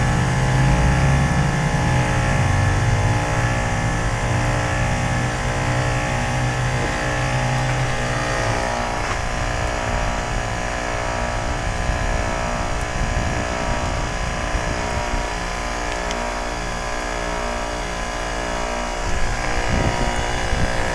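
2003 Carrier TECH2000 4-ton heat pump outdoor unit running a defrost cycle on a frozen coil: a steady compressor hum with a deep low drone that eases about eight seconds in.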